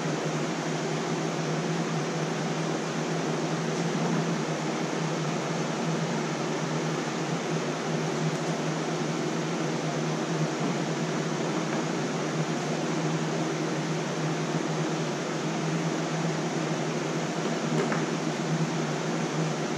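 Steady whir of a cooling fan with a constant low hum.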